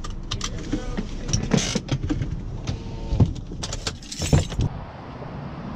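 Car cabin sounds as the truck pulls up: a low rumble of engine and road under a run of clicks, knocks and rattles with jangling keys among them. It goes quieter near the end.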